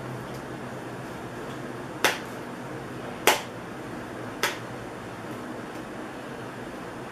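Three sharp clicks, about a second apart, over a steady low background hiss.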